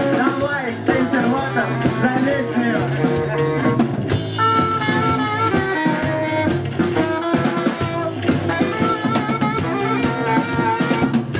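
Live band playing with electric guitar, drum kit and saxophone, a male voice singing over it for the first few seconds, then instrumental with steady held melody notes from about four seconds in.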